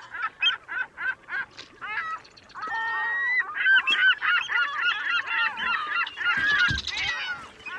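Geese honking: short single honks about four a second at first, then from about two and a half seconds many calls overlapping densely, as from a flock.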